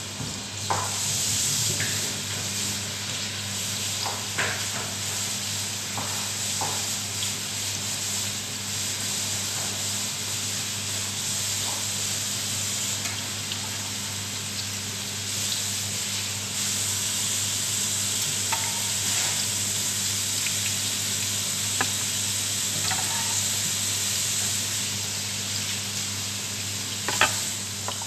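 Tortang talong (eggplant omelette) sizzling as it fries in oil in a frying pan, a steady hiss with a few sharp clicks and scrapes of a utensil against the pan as the patties are turned and lifted out. A steady low hum runs underneath.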